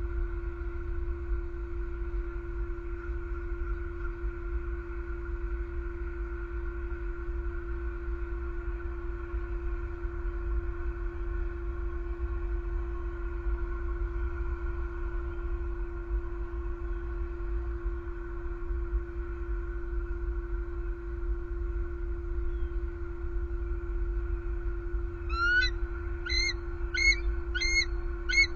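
Steady hum of several fixed tones over a low rumble. Near the end a bald eagle gives a quick series of about six high, piping calls.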